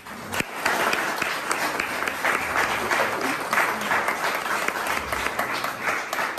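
Audience and panelists applauding, a dense round of hand clapping that starts about half a second in and keeps going.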